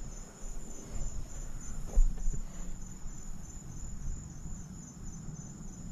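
Night insects, cricket-like, chirping in a steady, high, evenly pulsing trill, with a single dull thump about two seconds in.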